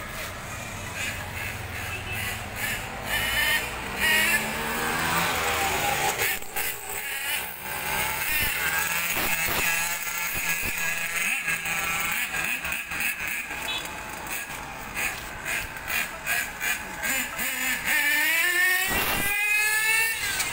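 Remote-control racing car's motor whining as the car speeds along the road, rising and falling in pitch several times, with a long rising run near the end.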